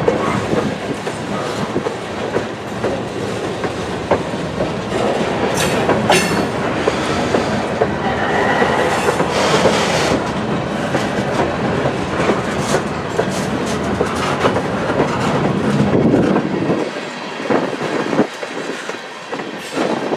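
Freight cars of a passing train rolling by close, steel wheels clacking over the rail joints in a steady stream of clicks. A brief wheel squeal comes through about eight seconds in, and the low rumble thins out near the end.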